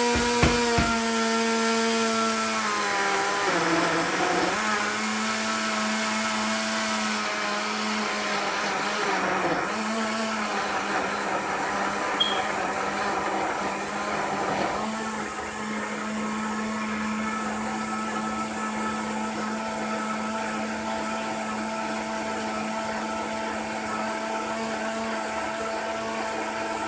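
Smoothie blender motor running continuously, blending mango into thick juice. Its pitch sags briefly a few times in the first fifteen seconds as the load in the jar shifts, then it runs steady.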